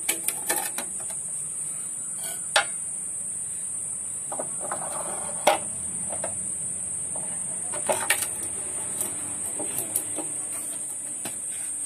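A few sharp metal clinks and knocks, seconds apart, as the steel parts of a homemade rotating bonsai turntable are fitted together over its pipe spindle, over a steady high-pitched hiss.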